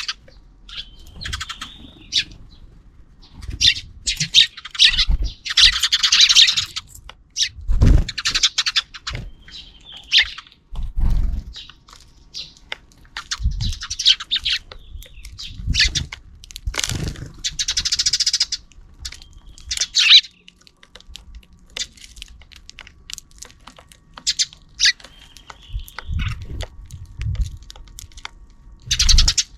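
Sparrows chirping in quick clusters of short calls, with several dull low thumps in between.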